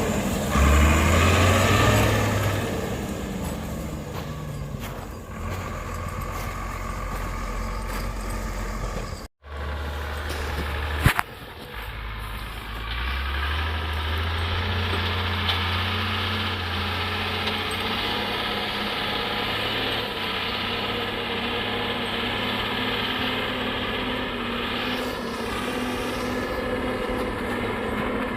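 Off-road vehicle engine revving, then running steadily under load, with a brief break in the sound about nine seconds in.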